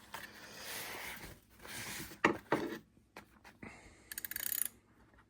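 Metal wrenches handled and rubbing, a couple of single clicks, then a quick run of rapid clicking from the 90-tooth ratchet mechanism of a Klein ratcheting combination wrench being worked back and forth near the end.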